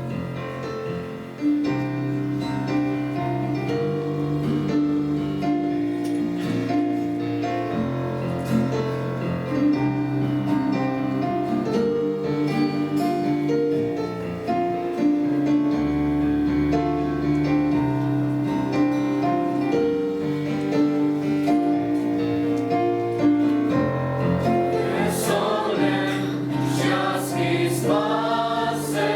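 A keyboard plays a slow chordal introduction, and a youth choir begins singing the song near the end.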